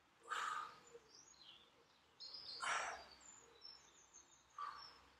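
A person breathing out heavily three times, about two seconds apart, while holding a deep seated stretch. Faint high bird chirps sound between the breaths.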